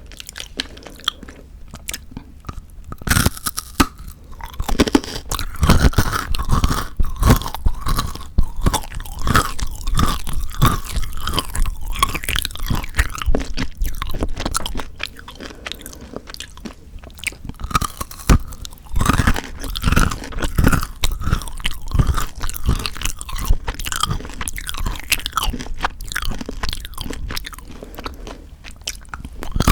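Chocolate being chewed close to the microphone: dense, irregular crunching and chewing clicks, quieter for about the first three seconds.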